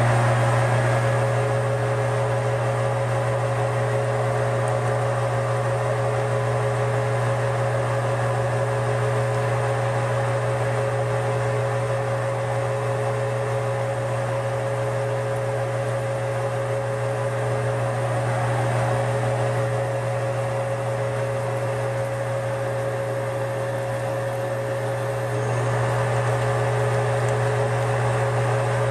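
Metal lathe running steadily under power, its spindle turning a tool-steel cam blank while a center drill in the tailstock drill chuck is fed into the end of the work. An even machine hum, a little louder near the end.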